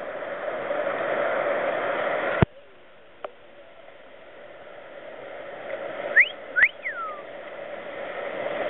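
Rushing whitewater rapids. The water noise drops away abruptly about two and a half seconds in, then builds back, with three short whistle-like calls a little after six seconds, two rising and one falling.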